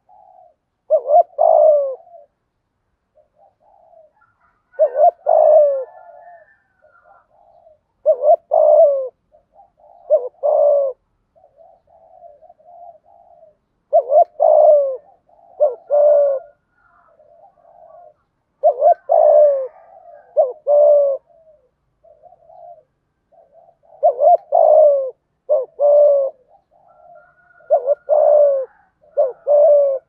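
Spotted dove cooing close to the microphone: loud phrases of two or three coos repeat about every four to five seconds, with softer cooing between them.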